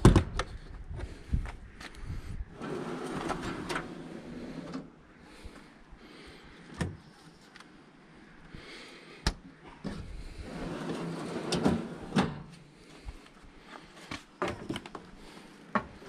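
Clicks and knocks from an RV's outdoor-kitchen hatch and mini fridge door being opened and handled, with two longer stretches of handling noise in between.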